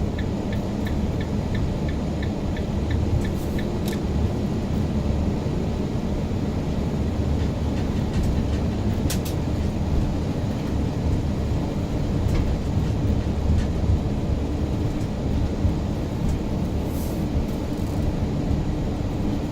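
Steady low rumble of a car driving through snow, heard from inside the cabin: tyre and engine noise. A light ticking, about three a second, runs alongside it and stops about four seconds in.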